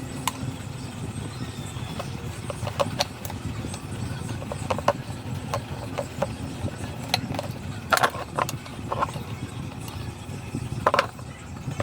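Scattered clicks and knocks of hard parts and tools being handled, with a small cluster of taps about eight seconds in and another near the end, over a steady low background rumble.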